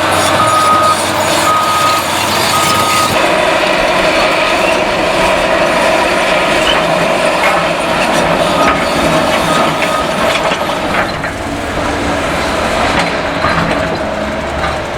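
Cat excavator's diesel engine running steadily on a demolition site, with a reversing or travel alarm beeping about once a second that stops about three seconds in. A few knocks come near the end.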